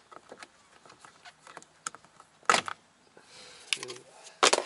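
Plastic interior door trim on a Honda Accord being pried loose by hand: scattered small clicks and knocks, one sharp snap about halfway through, and a burst of loud clicks near the end as the clips let go.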